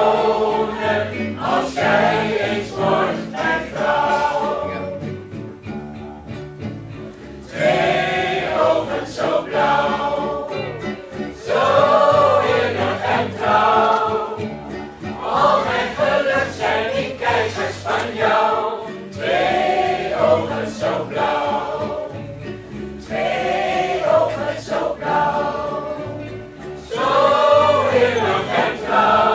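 Choir singing in phrases with short breaths between them, over a steady low accompaniment.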